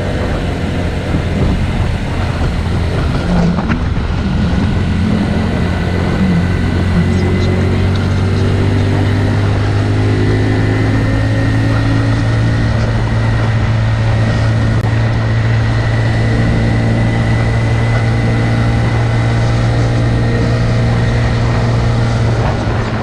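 Honda Cross Cub 110's small single-cylinder four-stroke engine running at a steady cruising speed while riding, with only slight changes in pitch.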